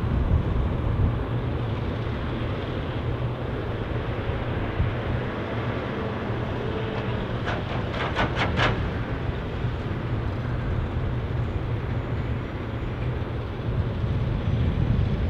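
Scania R580 truck's V8 diesel engine running steadily, with four quick sharp knocks in a row about halfway through.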